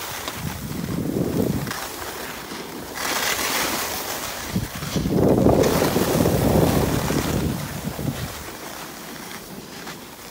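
Snow hissing and scraping under sliding edges on a packed, tracked slope, with wind rushing over the microphone. The noise rises and falls in swells, loudest from about five to seven seconds in.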